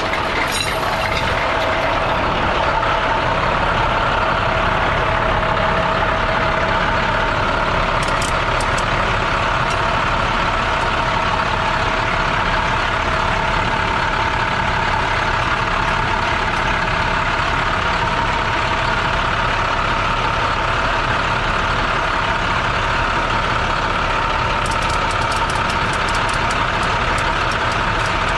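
Heavy-duty diesel truck engine idling steadily close by. A few light metallic clicks come near the end.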